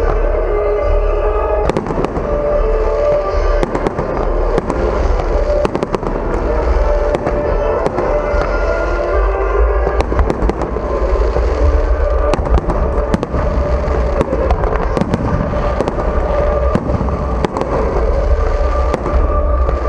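Fireworks display: shells bursting in many sharp bangs and crackles, one after another, with music playing alongside.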